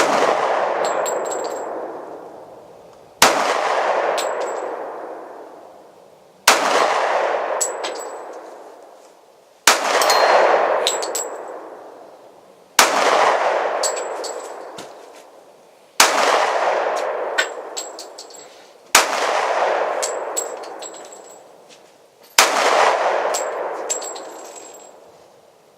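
Eight single shots from a Glock 27 .40 caliber subcompact pistol, evenly paced about three seconds apart. Each crack is followed by a long fading tail and a brief high metallic ring.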